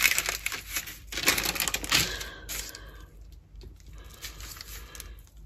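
Parchment paper crackling and rustling under the hands as a sheet of cinnamon-sugar-covered dough is rolled up on it. It is loudest for the first two seconds or so, then turns to a soft rustle.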